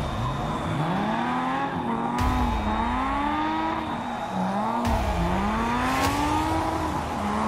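Drift car's engine revving up and down as the car spins donuts, its pitch rising and falling in about three long sweeps, with tyres squealing.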